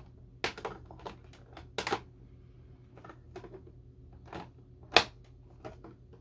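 Stiff clear plastic toy packaging tray crinkling and clicking as it is handled and cut, in irregular sharp crackles, with one loud snap about five seconds in.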